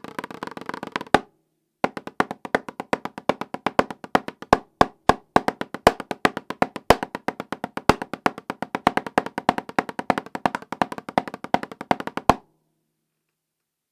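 Drumsticks playing an 8-inch Remo practice pad with a coated Ambassador head: a fast run of strokes, a brief break about a second in, then steady stick patterns with accented hits, each stroke ringing briefly. The playing stops about a second and a half before the end.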